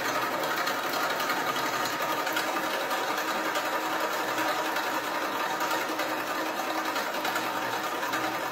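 Home-built flywheel machine running at speed, its crank arm working a coil spring: a steady, rapid mechanical clatter.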